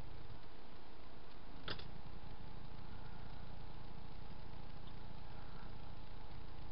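Steady hum of a small electric desk fan running, with one sharp click about a second and a half in.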